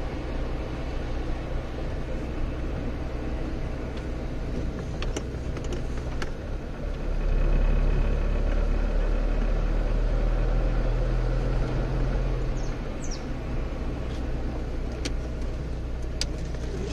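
Car running along a road, heard from inside the cabin as a steady engine hum with tyre noise. The engine drone grows louder from about seven to twelve seconds in, then eases back.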